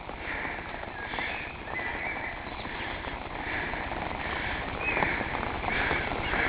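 Footsteps on a wet paved path at a steady walking pace, over the hiss of steady rain.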